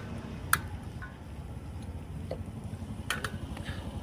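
Sharp clicks from a camping gas stove's push-button igniter, two near the start and a double click about three seconds in, over a steady low rumble.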